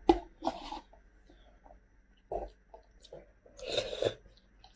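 Close-up eating sounds from a cup of Samyang Hot Chicken instant ramen: a metal fork working the last noodles in a paper cup, with a slurp, in a few short separate bursts.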